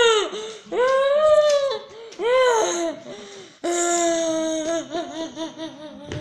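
A girl's high-pitched wordless vocalizing: a few drawn-out, bending wails, the last one held and then breaking into quick pulses about four a second.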